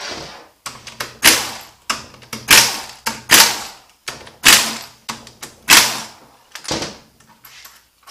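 Pneumatic tool backing out the front pump bolts of a VW 09A automatic transmission, in about eight short whirring bursts, one bolt after another.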